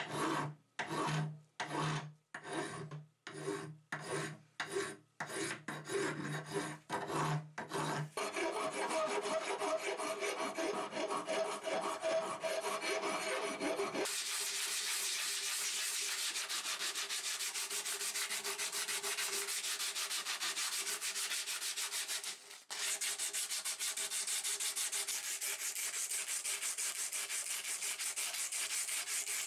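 Flat file scraping over a metal pump handle held in a vise, first in separate strokes a little under two a second, then in faster continuous strokes. From about halfway through, a strip of abrasive paper is drawn rapidly back and forth over the handle in a steady scrubbing sound.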